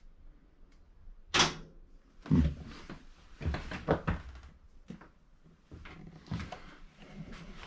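A sharp clack about a second in, then a run of dull thumps and knocks.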